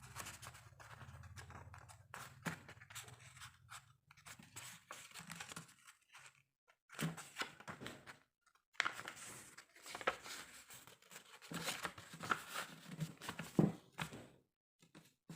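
Square origami paper being folded and creased by hand: irregular crinkling and scraping in short bursts, with brief pauses between.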